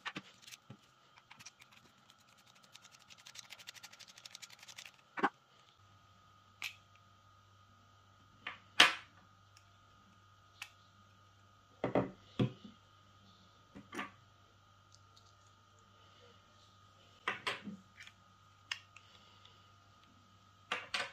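Scattered clicks and knocks of a plastic hair clipper and its blade being handled and fitted, with a quick run of fast ticking a couple of seconds in.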